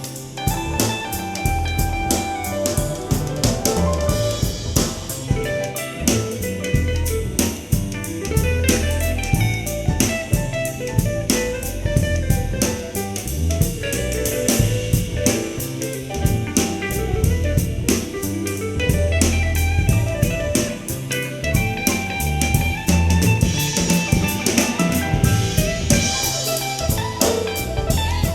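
Soul-jazz music with a drum kit, snare and rimshots, a bass line and guitar, heard as played back through an in-ear monitor.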